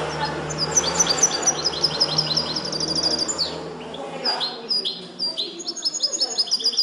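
A caged European goldfinch singing a song taught in the Moroccan limpio style. It runs fast trills of high, clipped notes, about ten a second, then gives a single downward-slurred note a little past the middle. A second, more varied run of notes follows.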